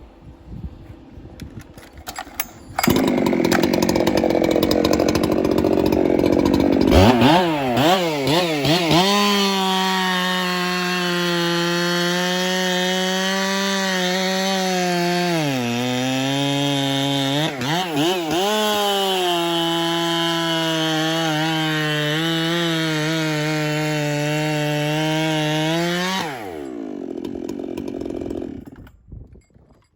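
Ported, muffler-modded Echo CS-7310 chainsaw run at full throttle through wood. Its pitch wavers at first, then holds a steady high note while it pulls through the cut, sagging briefly twice under load. It is let off about 26 seconds in and winds down.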